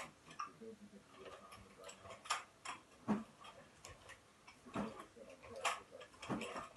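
Sharp clacks and clicks from a swung stick-like handheld toy as it is spun, caught and knocked, about seven at uneven gaps, the loudest about three seconds in.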